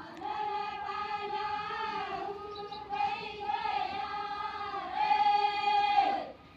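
A group of women singing a traditional rain-invoking folk song together in unison, in sustained, gently wavering phrases. The singing breaks off near the end.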